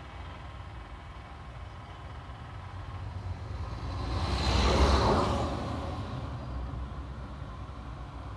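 A vehicle passing by, swelling to a peak about five seconds in and fading away, over a steady low background rumble.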